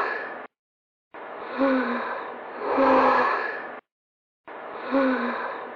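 A breathy human sigh, each time in two swells, a lighter breath and then a louder exhale. The same sigh repeats identically with about two-thirds of a second of dead silence between repeats, like a looped clip.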